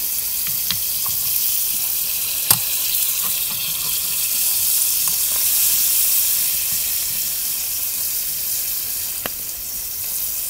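Cauliflower mushroom sizzling steadily as it sautés in butter in a small frying pan, with a few light clicks of a metal fork stirring against the pan, the sharpest about two and a half seconds in.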